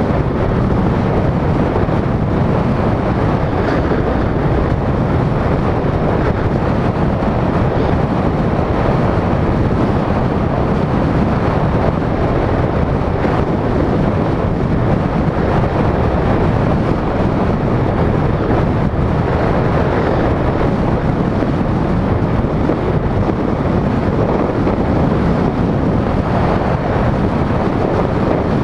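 Steady wind rush buffeting the microphone of a camera mounted outside a moving vehicle, mixed with tyre and road noise at cruising speed.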